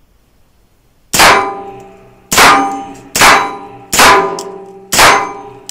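LUVO LA-22 semi-automatic .22 LR rifle firing five shots about a second apart, freshly lubricated and cycling well. Each shot has a ringing, echoing tail in a small indoor range.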